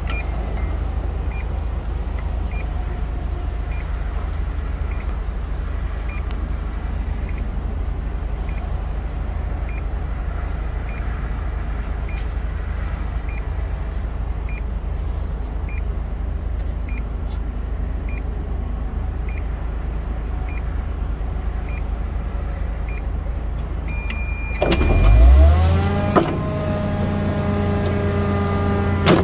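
A 5-ton grapple truck's diesel engine idling steadily, with a faint tick repeating about once a second. About 25 seconds in, the engine revs up with a rising whine and holds at a higher speed to drive the grapple crane's hydraulics.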